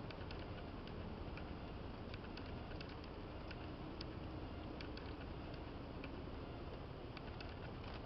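Faint, scattered metallic clicks and scrapes of a mechanical fuel pump being worked into place by hand against the engine block, over a steady low background rumble.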